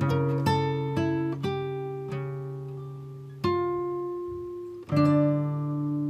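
Instrumental acoustic guitar music. Notes are plucked in quick succession at first, then chords are left to ring out and fade, with fresh chords struck twice in the second half.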